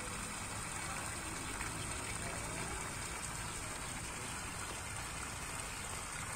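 Garden fountain jet splashing steadily into an ornamental pool, an even rain-like patter of falling water.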